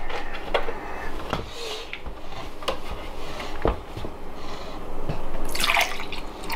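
Juice pouring from a paper carton into a plastic cup near the end, after scattered light knocks and taps as the carton and cup are handled.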